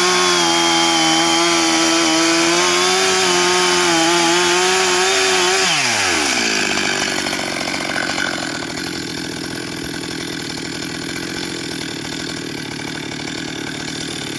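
Stihl chainsaw running at high revs with a steady pitch that wavers slightly. About six seconds in, the throttle is released and the engine winds down quickly to a lower, rougher idle, which carries on to the end.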